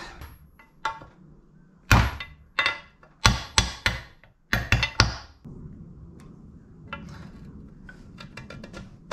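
A hammer tapping a new part into a Yamaha Banshee engine case to seat it: about nine sharp taps over four seconds. Then a faint low hum with small clicks.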